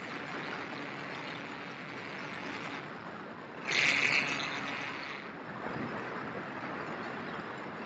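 Onboard sound of an electric RC model Cessna 150 in flight: steady wind rush over the airframe with the faint hum of its electric motor and propeller. About four seconds in, a louder rush lasts around half a second.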